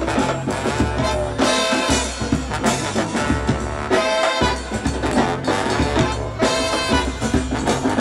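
Background music with a steady beat and a bass line moving in short steps.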